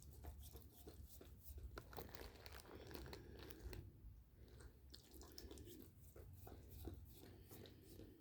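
Near silence with faint rustling and scattered small clicks, like crinkling and light handling noises.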